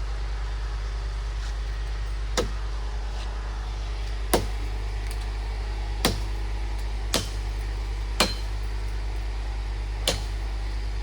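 Six sharp knocks or strikes, one to two seconds apart, over a steady low hum.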